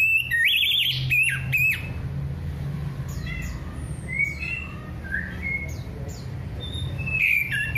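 Orange-headed thrush singing a varied, chattering song of quick whistled and squeaky phrases, loudest in the first two seconds and again near the end. A steady low hum runs underneath.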